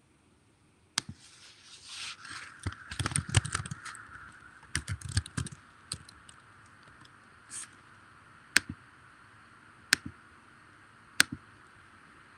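Desk handling noise close to a computer microphone: a sharp click, a few seconds of irregular clatter and rustling, then three single sharp clicks about a second and a half apart.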